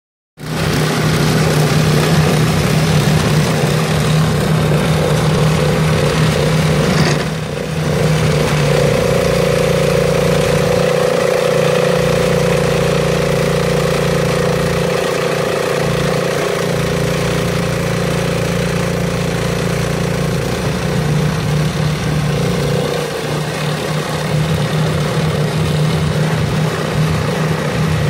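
Two-stage snowblower's small single-cylinder engine running steadily under load as it augers through deep, hard wet snow. A higher steady tone joins in for a long stretch in the middle, and the sound briefly dips about seven seconds in.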